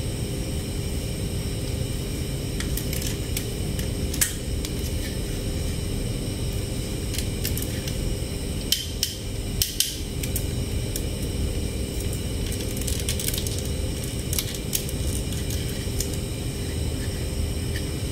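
Small clicks and rattles of a toy excavator's jointed arm, bucket and tracks as it is handled and flexed, a few sharp clicks around 4 s and between 9 and 10 s. A steady low hum runs underneath.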